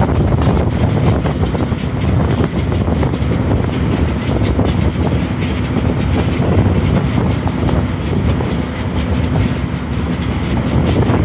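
Steady rumble of construction machinery and street traffic, with a faint steady hum and scattered light knocks and clatter.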